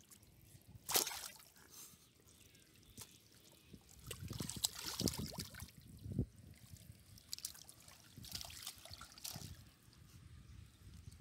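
Shallow muddy water sloshing and dripping, stirred by hands and bodies moving through the mud, in irregular small splashes. The sharpest splash comes about a second in.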